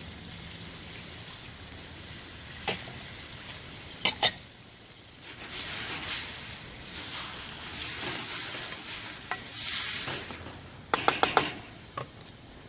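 Chicken karahi frying in hot oil with turmeric, garlic and ginger, stirred with a metal spoon against the pan. A few sharp spoon clicks come in the first four seconds. The sizzle swells loudly through the middle as the mix is turned, and a quick run of knocks against the pan comes near the end.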